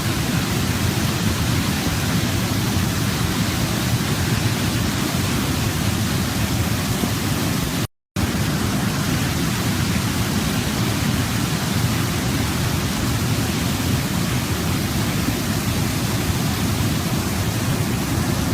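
Waterfall: a steady rush of falling water, fullest in the low end. It cuts out completely for a fraction of a second about eight seconds in, then resumes unchanged.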